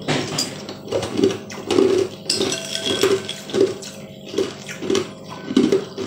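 Close-miked eating sounds over a glass bowl of fruit in liquid: a regular pulse about one to two times a second, with small clicks and wet sounds.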